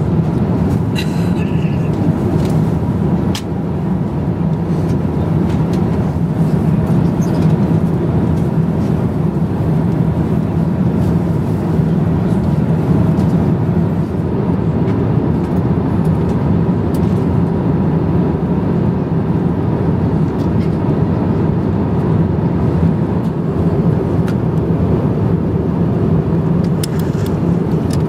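Steady cabin noise of an Airbus A350-900 in cruise: the even low rumble of its jet engines and the airflow along the fuselage, heard from an economy seat, with a few faint clicks.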